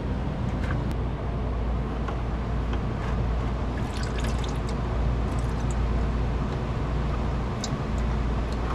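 Engine oil draining from the underside of a Nissan 350Z into a drain pan, a steady trickle and drip, over a constant low rumble with a few light clicks.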